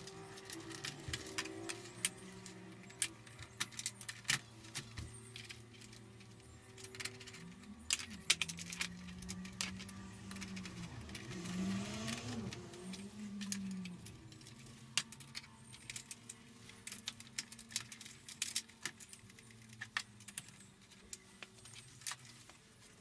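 Small metal parts and hand tools clicking and clinking irregularly as nuts and screws are fitted and tightened on a motorcycle license plate holder.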